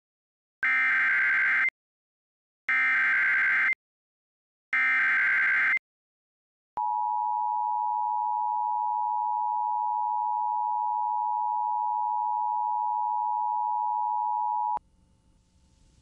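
Emergency Alert System activation: three one-second bursts of SAME header data tones, then the steady two-tone EAS attention signal for about eight seconds, cutting off abruptly.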